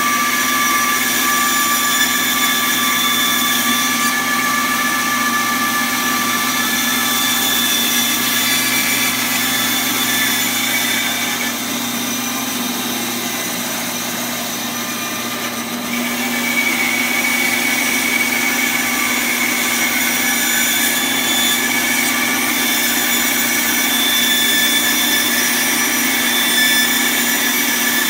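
A 1 HP tilt-head band saw running steadily while its blade rips a wooden branch lengthwise: a constant motor hum with steady whining tones over the cutting noise. It is a little softer for a few seconds in the middle.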